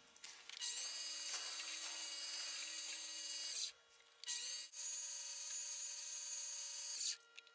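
Mini lathe spindle motor spinning up with a rising whine, running steadily, then winding down to a stop; this happens twice, with a short pause a little past the middle.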